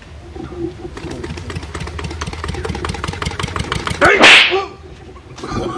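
An engine-like sputtering sound over a low hum, like a motorcycle revving, its pulses quickening for about three seconds, then a short loud hissing burst about four seconds in.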